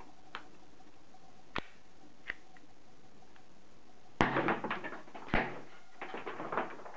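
Plastic-and-metal clicks of an airsoft pistol being handled. A few light clicks as a shell is seated in the breech, then about four seconds in a loud snap and a quick run of clicks and rattles, with another sharp snap about a second later, as the mechanism is worked by thumb.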